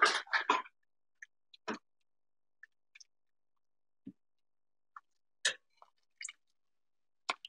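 A short snatch of voice, then a ladle clinking against a stainless-steel soup pot and a bowl in about ten short, separate knocks while soup is ladled out, the loudest about halfway through, with dead silence between them.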